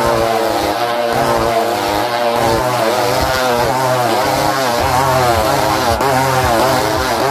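Several motorcycle engines revving together inside a steel-mesh globe of death, their pitch rising and falling over and over as the riders circle the sphere.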